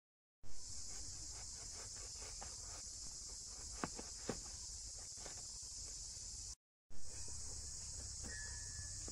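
Steady high-pitched drone of insects, with a run of soft clicks and crunches as a large knife cuts through raw jackfruit. The two sharpest cuts come about four seconds in. The sound drops out twice briefly, near the start and past the middle.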